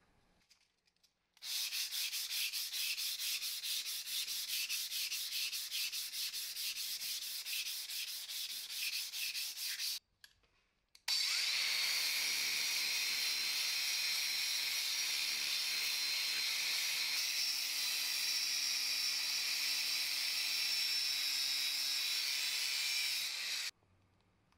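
Cast-iron drill press table being sanded with quick, rhythmic back-and-forth strokes. After a short pause, an angle grinder runs steadily with a disc pressed on the table's surface, a steady high tone over the grinding, and stops suddenly near the end.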